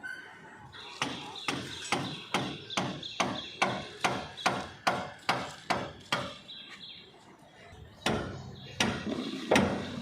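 Hammer blows struck at an even pace of two to three a second, then a pause, then a few louder, irregular strikes near the end.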